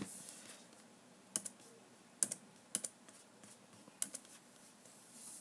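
Computer clicking: a handful of sharp, separate clicks spread over a few seconds, several coming in quick pairs, as someone works at a computer.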